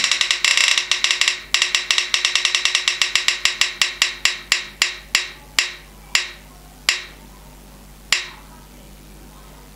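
Spinner-wheel app on a phone ticking through the phone's speaker as its wheel spins: rapid clicks that gradually slow and space out, the last one about eight seconds in, as the wheel comes to rest.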